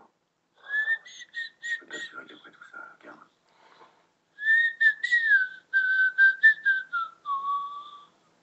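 A person whistling a short tune by mouth in two phrases of quick notes. The second phrase steps downward and ends on a longer, lower held note.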